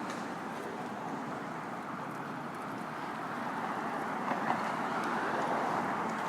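City street traffic: a steady wash of passing vehicles that grows a little louder about halfway through, with one small click near the end.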